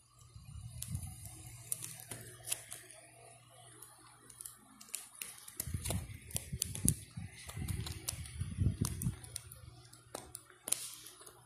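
Fingers pressing and sliding on the clear plastic pockets of a coin album, giving scattered sharp clicks and crinkles of the plastic over low rumbling handling noise, heaviest in the second half.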